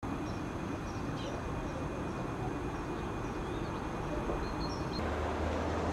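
Outdoor ambience: a steady low rumble with a few faint, short bird chirps over it, changing at a cut about five seconds in.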